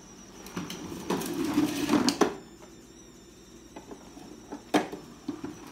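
Plastic wheels of a toddler's push-along toy car rolling and rattling over a wooden floor for about two seconds, ending in a few sharp clicks. Then a few light plastic knocks, one sharp knock near the end.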